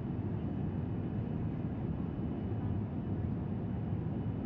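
Steady low rumble of a Boeing 737 in cruise heard from inside the passenger cabin: engine and airflow noise, even and unchanging.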